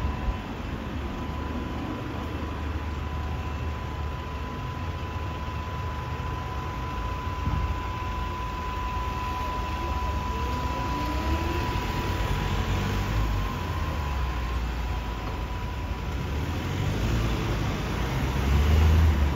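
Street traffic of cars, vans and double-decker buses running along a busy city road, with a steady low rumble. About ten seconds in, an engine rises in pitch as it pulls away, and the rumble grows louder near the end.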